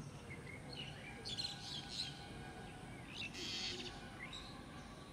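Birds chirping: a few short, high calls and trills in separate bursts.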